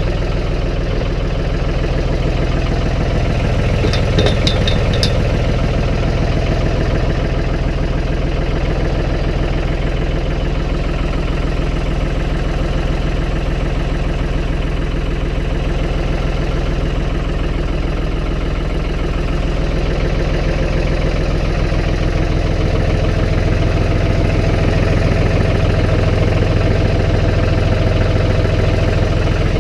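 Engine of a snow-plowing vehicle running steadily under load, with a quick run of four or five short high ticks about four seconds in.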